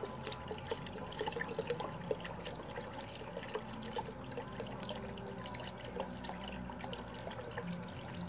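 Automatic bell siphon draining a grow-media bucket at full discharge: water pours steadily from a PVC pipe into the bucket below, splashing and trickling.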